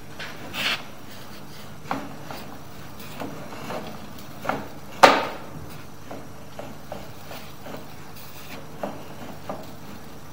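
Sewer inspection camera's push cable being pulled back out of the drain line: irregular knocks and rubbing over a steady hum, with one sharp, loud knock about five seconds in.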